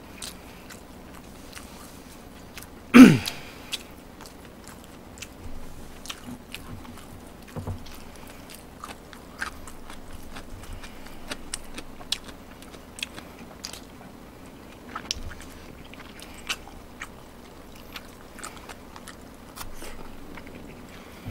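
A person chewing and eating with chopsticks close to the microphone: steady small wet mouth clicks and chewing sounds, with one loud short sound about three seconds in that falls in pitch.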